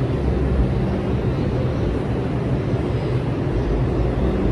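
New York City subway train of R142 cars standing at an elevated station, its equipment giving a steady low hum over a continuous rumble.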